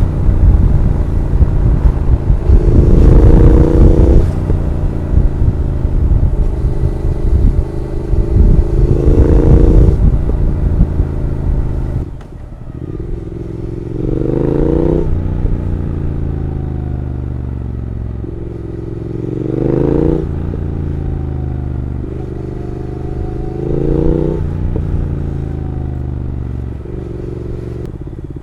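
Triumph Speed Twin parallel-twin motorcycle engine with an X-pipe decat and Vance & Hines exhausts, riding and pulling hard. Its pitch climbs for a couple of seconds and drops back five times, as at gear changes. Heavy wind rumble on the microphone for roughly the first half.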